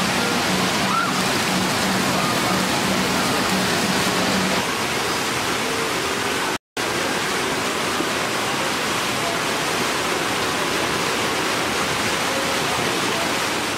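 Rushing, churning white water of a river-rapids raft ride, a steady loud wash of water noise. A low hum runs under it for the first few seconds, and the sound drops out for an instant about halfway through.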